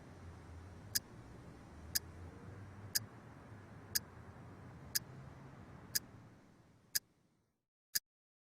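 Alarm clock ticking, one sharp tick each second, over a faint low hum that fades out about seven seconds in, leaving the ticks alone.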